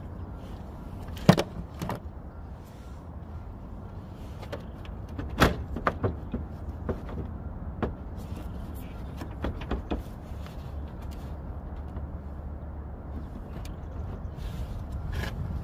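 Hard plastic knocks and clicks from a 2009 Chevy Cobalt's headlight assembly being gripped and pulled at in its mounting: a sharp knock about a second in, another near five and a half seconds, then a run of lighter clicks, over a steady low rumble.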